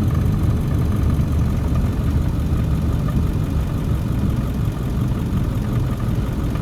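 Steady low rumble of a 2002 Ford F250 with a straight-piped 7.3 Powerstroke turbo-diesel, heard from inside the cab while it drives slowly, with a faint steady whine above it.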